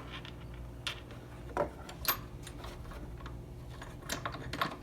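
Scattered light clicks and taps of a hand tool and small metal parts being handled while undoing the intake's Allen-key screws, a few isolated ticks followed by a quick cluster near the end, over a steady low hum.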